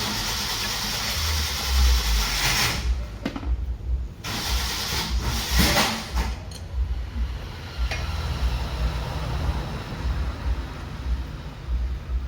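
Two long bursts of hissing, the first about three seconds and the second about two, over a low, uneven rumble.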